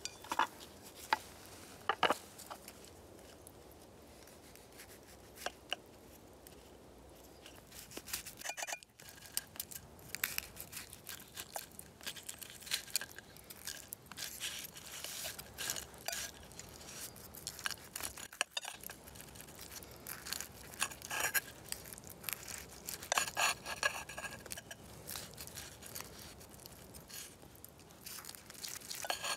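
A knife and a wooden fork scraping and clicking against a clay plate while cutting fried sausages. The clicks and scrapes come irregularly, a few at first and much busier from about ten seconds in.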